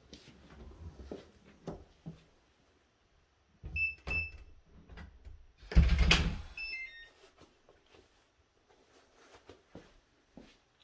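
A short electronic beep about four seconds in. Then a loud bump, followed at once by a quick falling run of three or four electronic beeps. Faint knocks and handling rustle lie around them.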